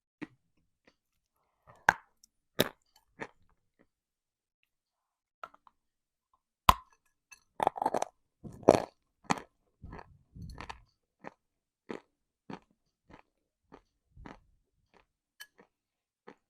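Biting and crunchy chewing of dry edible mineral lumps: a few sharp snaps early, then one loud bite followed by a run of dense crunching. After that the chews thin out into scattered softer crunches.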